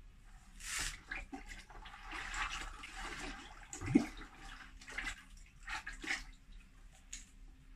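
Liquid pottery glaze sloshing and pouring in a series of splashes, with a short rising gurgle about four seconds in.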